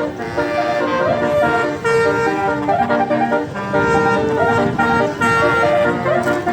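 Tour bus's basuri telolet horn, a set of roof-mounted air horn trumpets, playing a tune of held notes that change pitch in steps, with short upward slides recurring.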